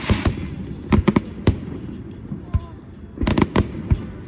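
Aerial fireworks bursting in a rapid string of sharp bangs: a quick pair at the start with a short crackle, a cluster about a second in, and another close volley a little past three seconds.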